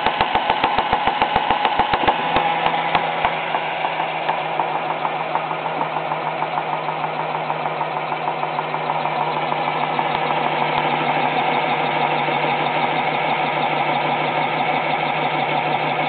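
Lego motor cranking three small Lego pneumatic pumps, running with a fast, even mechanical clatter of pump strokes as it builds air pressure in the tank. Heavier thumps mark the strokes for the first three seconds or so, after which a steady hum sits under the clatter.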